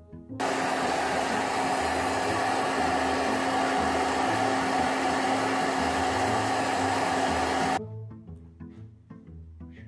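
Blow dryer running steadily: a loud rush of air with a steady hum. It starts abruptly just after the start and cuts off abruptly about two seconds before the end, leaving light background music with a low beat.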